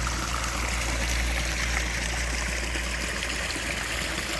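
Mountain stream running steadily: a continuous rush of water.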